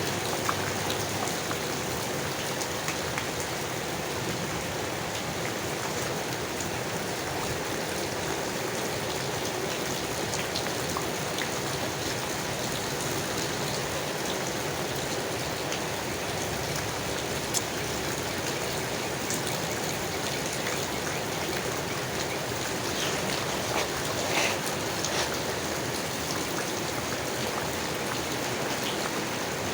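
Steady rain falling on leaves, an even wash of sound with scattered louder single drops now and then.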